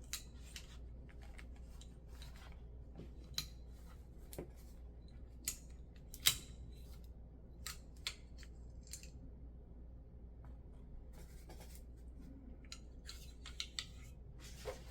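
Light, scattered clicks and scrapes of an AF Romulus pistol's metal parts being handled during disassembly, with the sharpest click a little before the middle and a quick run of clicks near the end.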